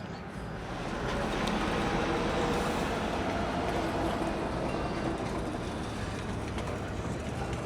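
A motor vehicle running steadily, with a rushing noise that grows louder about a second in and then holds.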